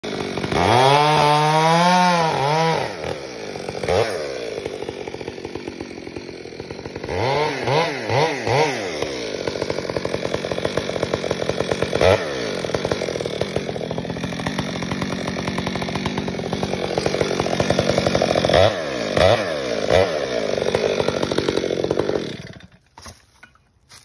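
Stihl MS 462 two-stroke chainsaw revving in quick blips, then cutting into an alder trunk under steady load with more rev blips along the way. It cuts off abruptly near the end.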